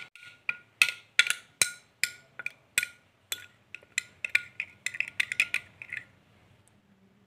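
Steel spoon stirring a wet spice paste in a glass bowl, clinking against the glass in quick, irregular taps that each ring briefly. The clinking stops about six seconds in.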